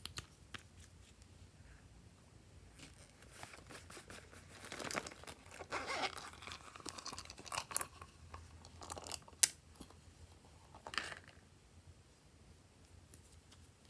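Hands handling small objects close to the microphone: crinkling and rustling from about three seconds in to past the middle, with scattered light clicks, one sharp click, and a last short rustle.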